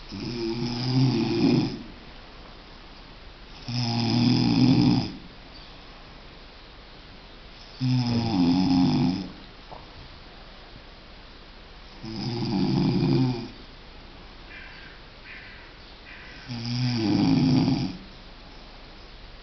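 A man snoring loudly in his sleep: five long snores, one about every four seconds, with quiet breathing gaps between them.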